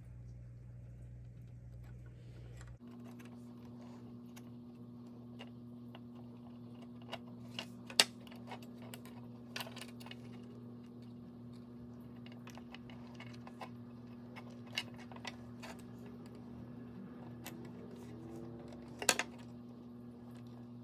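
Small scattered clicks and taps from hands handling the jointed sections of a homemade swimbait lure and its joint hardware on a wooden table, over a steady low hum. Two sharper clicks stand out, about eight seconds in and again near the end.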